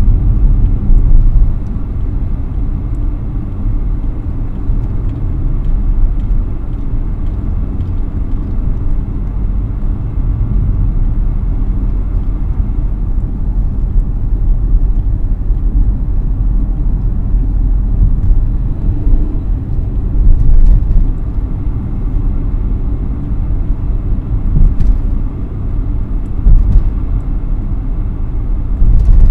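Car driving along a street, heard from inside the cabin: a steady low rumble of engine and tyres on the road, swelling briefly a couple of times.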